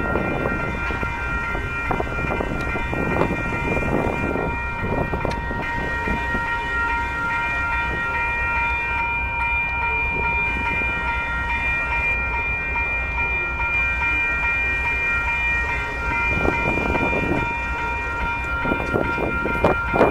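Freight train of tank cars rolling through a street-level grade crossing: a steady low rumble with scattered clanks from the wheels. Over it, the crossing bell keeps ringing without a break.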